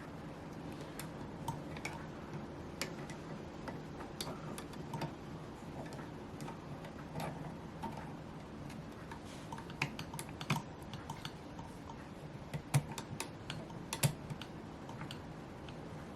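Small irregular clicks and taps of scissors being handled and fitted into a scissors-sharpening angle jig, with a few sharper knocks in the second half.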